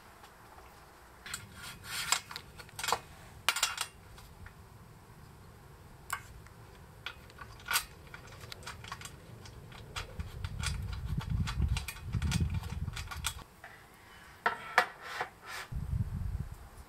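Small metal parts clicking and clinking as aluminium mounting brackets, screws and slot nuts are handled and fitted into an aluminium rail, in bursts of sharp clicks. A low rumble comes in about ten seconds in and again near the end.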